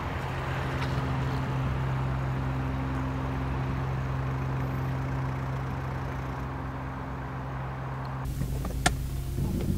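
Ford Escort van's engine running steadily at low revs as the van drives slowly and pulls up. A single sharp click comes near the end.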